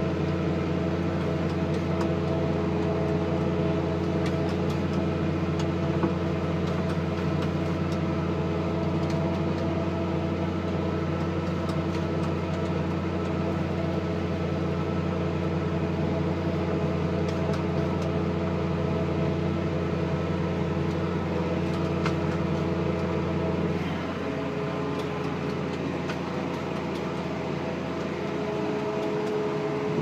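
New Holland 6090 tractor's six-cylinder diesel engine running steadily under load, pulling a five-furrow plough, heard from inside the cab. About 24 seconds in the engine note changes and drops slightly.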